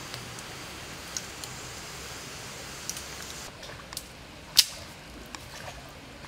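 Wood and charcoal fire crackling under a steady hiss, with a few sharp pops and one loud snap a little over four and a half seconds in.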